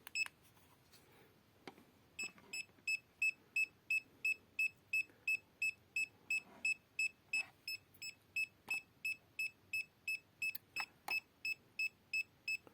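Handheld R&D RD630 EMF meter sounding its alarm: short high-pitched beeps at about three a second, starting about two seconds in. The alarm signals strong field readings next to a working USB AC/DC adapter with no load. A few faint clicks are heard among the beeps.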